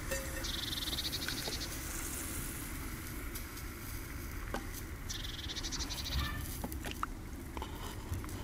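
Carrot being cut with a knife over a wooden board into a steaming pot on a camp stove: scattered soft cuts and knocks over a low steady rumble. A high, rapid trilling animal call sounds twice, at the start and again about five seconds in.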